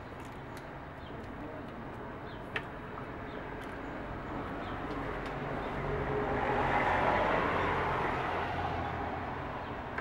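Steady background noise that swells and fades over a few seconds past the middle, with a single sharp click about two and a half seconds in.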